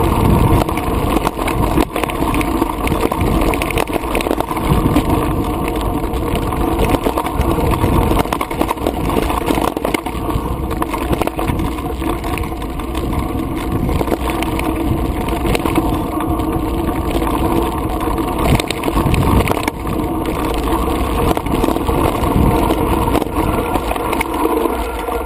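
2010 Specialized Stumpjumper Comp mountain bike running fast down a dry dirt and rock trail: tyres crunching over the ground and the bike rattling and clattering over bumps, over a steady rush of riding noise.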